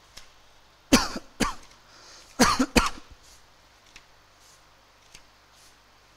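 A man coughing and clearing his throat in two short bouts, about a second in and again about two and a half seconds in, each of two quick bursts.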